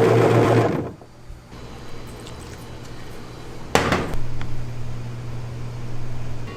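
A small motor-driven machine runs with a fast, pulsing low hum and cuts off about a second in; a sharp click comes near the middle, followed by a steady low hum.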